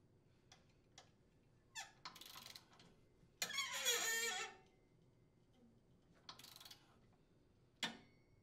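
Torque wrench ratcheting in short strokes on a 9/16-inch socket as the impeller's center bolt is tightened toward 50 foot-pounds. There are a few separate bursts, the loudest lasting about a second halfway through, with single sharp clicks between them.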